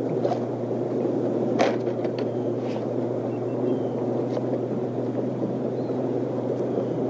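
Wind rumbling over the microphone on an open boat in gusty wind, with choppy water, a steady low hum underneath and a few sharp clicks in the first three seconds.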